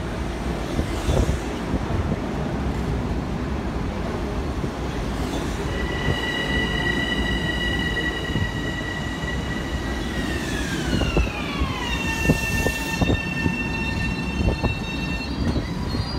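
Long Island Rail Road electric train pulling in along the platform: a steady rumble of wheels on rail, with a high whine that holds steady, then glides down in pitch over about two seconds as the train slows. Scattered knocks follow near the end as it draws to a stop.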